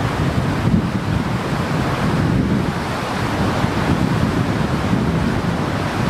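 Strong wind buffeting the microphone in a steady low rumble, over the wash of wind-driven waves on the lake.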